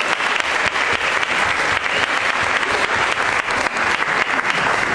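Audience applauding, many hands clapping at once in a dense, steady run.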